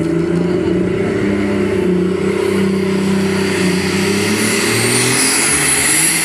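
A pulling tractor rated at about 4000 horsepower running hard under load as it pulls the sled. A high whine rises over the engine's steady note near the end.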